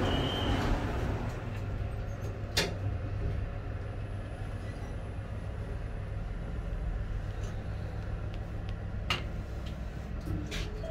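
Steady low hum inside an Otis passenger lift cabin during the ride, with a sharp click about two and a half seconds in and another near the end. A high beep ends within the first second.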